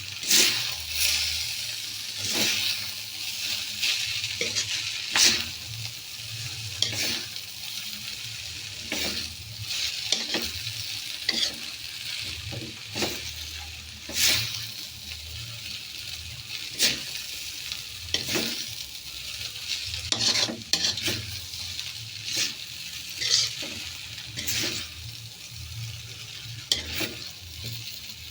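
Fried noodles (mie goreng) sizzling in a hot pan while being stirred, with a steady frying hiss and irregular scrapes and knocks against the pan about every second.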